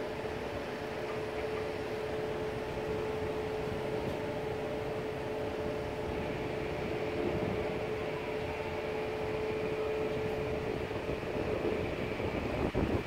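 A steady machine hum holding one pitch over a rough rushing noise; the hum stops near the end.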